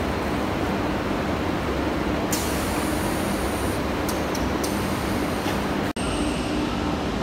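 Steady mechanical drone with a low hum from a coil packing machine's wrapping ring turning around a metal coil. Two stretches of high hiss come in the middle, and the sound breaks off for an instant about six seconds in.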